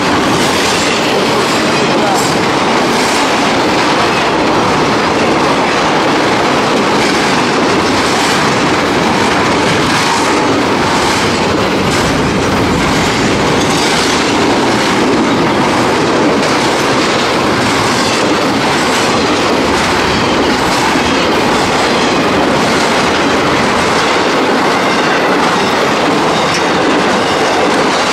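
Freight train cars rolling past, a loud steady rumble with the wheels clicking over the rail joints.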